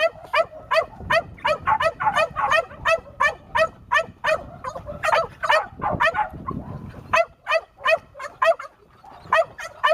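A puppy barking over and over in quick yaps, about three a second, easing off briefly near the middle before picking up again.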